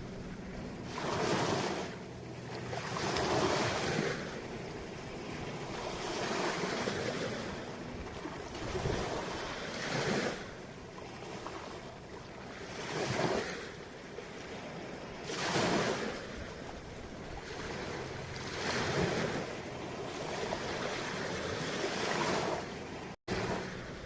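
Ocean waves breaking and washing up, in surges of hiss every two to three seconds. The sound cuts out for an instant near the end.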